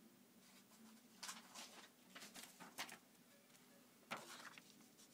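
Faint paper rustles as a bound book is handled and opened, its pages turning in a few short brushes over a low room hum.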